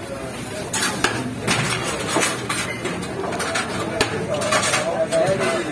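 Metal scoop and utensils clinking and scraping against a large metal cooking pot and steel serving bowls as rice is dished out, a string of sharp knocks at irregular intervals.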